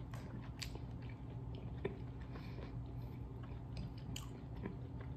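Close-up chewing of lobster tail meat in sauce: soft wet mouth sounds with scattered small clicks.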